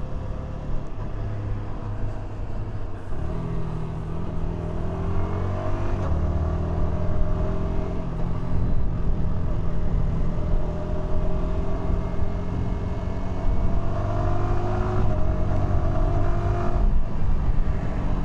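Yamaha R125's 125 cc single-cylinder four-stroke engine, on its stock exhaust, accelerating with the pitch climbing and dropping back at gear changes a few times, under steady wind rush.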